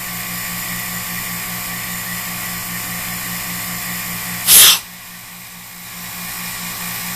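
Harbor Freight rotary-vane vacuum pump running with a steady hum, holding a vacuum fixture down. About four and a half seconds in, the fixture's valve is opened and a short, loud hiss of air rushes in, releasing the vacuum. The pump's sound then drops and builds back up over a second or so.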